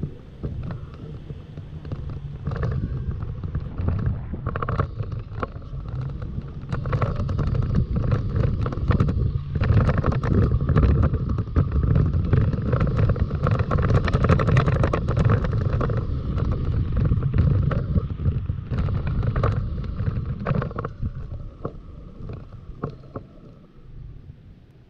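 Toyota Tacoma pickup driving on a dirt and gravel road: a steady low rumble of tyres and running gear with irregular clicks and rattles from gravel, and wind buffeting the microphone. It grows louder about a third of the way in and eases off near the end.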